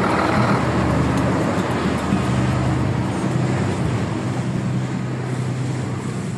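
Heavy tanker truck's engine running at low speed: a steady low hum over road noise, slowly fading.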